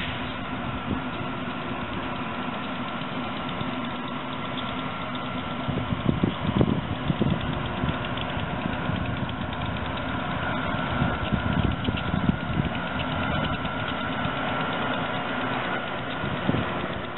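An approaching electric commuter train, an AEM-7 locomotive leading a push-pull set: a steady rumble with a faint high whine that gets stronger about ten seconds in. Irregular louder knocks come around six seconds in and again around eleven to thirteen seconds in.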